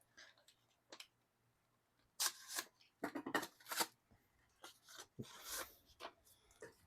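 Packaging being opened by hand: a few short bursts of cutting, tearing and rustling, about two, three and five seconds in, with small clicks between.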